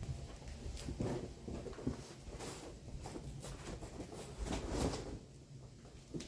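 Cardboard boxes of bandsaw blades being handled and opened: irregular rustling and light knocks, busier about four and a half to five seconds in.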